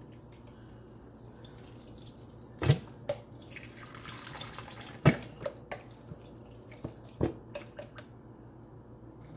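Italian dressing being poured from a bottle over a bowl of pasta salad, the liquid glugging and splashing, with three loud sharp knocks spread through it.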